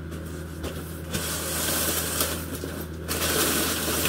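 Rustling and scraping as a padded guitar case is dragged up out of a cardboard shipping box and its packing paper, heard in two stretches over a steady low hum.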